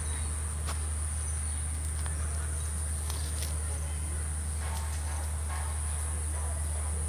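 Insects, crickets or cicadas, keep up a steady high-pitched chirring over a low steady rumble, with a few faint clicks.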